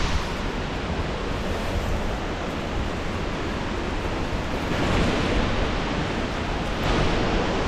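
Steady rushing of Ribbon Fall's water crashing down near its base, with wind buffeting the microphone; the noise swells briefly about five seconds in and again near seven seconds.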